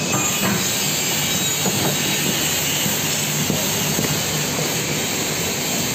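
Steady roar of a forced-air space heater (heater cannon), a continuous rushing noise at an even level, with a few light knocks over it.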